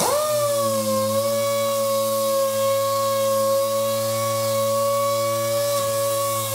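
SurfPrep random orbital sander starting suddenly and settling into a steady high whine as it sands a red oak door, with its vacuum dust extraction switched off.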